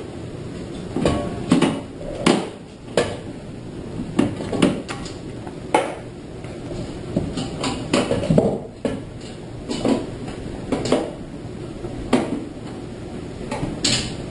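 Irregular metallic clicks, knocks and clatter as the thumb screws and top panel of a steel computer case are worked loose and pulled apart.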